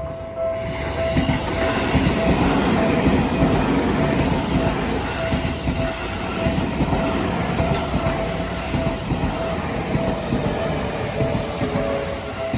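Seibu 20000-series electric train running past over the level crossing, its wheels clattering on the rails. The noise builds about half a second in and eases off near the end. The crossing's warning bell keeps ringing with a steady repeating ding underneath.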